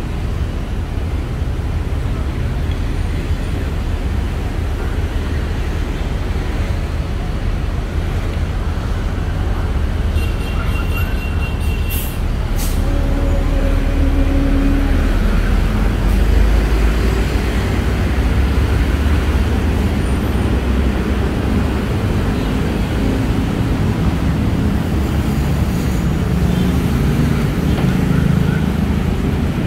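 Busy city road traffic: a steady rumble of passing vehicles. A short sharp sound comes about twelve seconds in, then a heavier, louder rumble as a large vehicle such as a bus or truck passes close.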